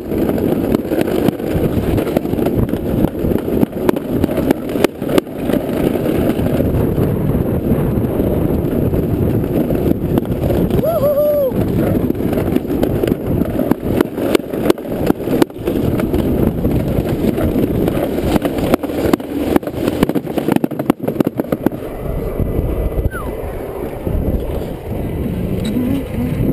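Plastic summer-bobsleigh sled running fast down its trough track: a steady loud rumble and rattle from the sled riding over the ridged track surface, with frequent knocks over bumps and joins. There is a brief high squeak about eleven seconds in, and the rumble eases near the end as the sled slows.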